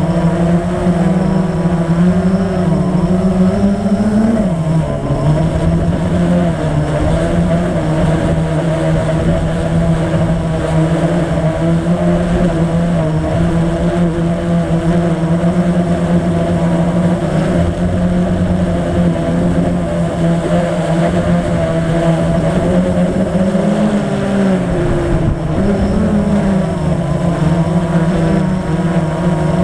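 Blade 350 QX quadcopter's four brushless motors and propellers humming steadily in flight, heard close from on board. The pitch dips and swings as the motors change speed, about four seconds in and again about 24 seconds in.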